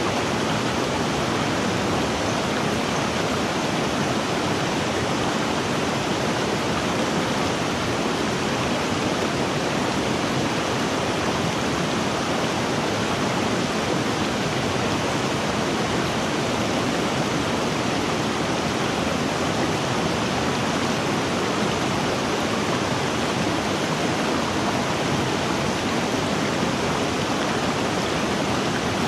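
River water rushing and splashing steadily, a continuous even wash of noise with no breaks or distinct events.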